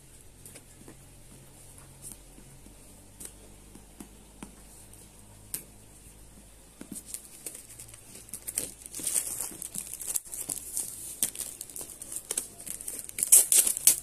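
Cardboard box being opened with scattered small clicks and taps, then plastic packaging crinkling and rustling from about seven seconds in, loudest near the end.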